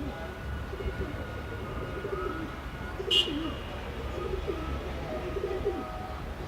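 Domestic pigeons cooing repeatedly, with wind rumbling on the microphone. A brief sharp high squeak stands out about three seconds in.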